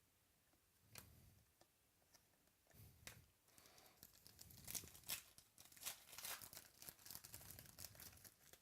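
Faint tearing and crinkling of a trading card pack's wrapper being opened, with a few soft clicks about a second in, and the crinkling running in short bursts from about three seconds in.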